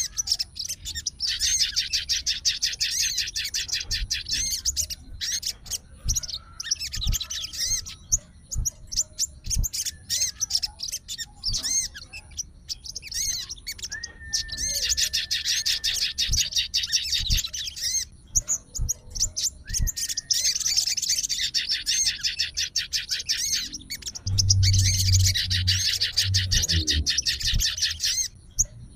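Crimson sunbird (sogon) singing: long runs of rapid, high-pitched trilled notes lasting a few seconds each, with short calls in the pauses between them. A low hum joins near the end.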